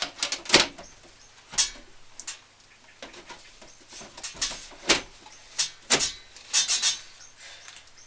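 Irregular sharp clicks and knocks of a PC case side panel being handled and fitted onto the case, with a quick cluster of clicks near the end.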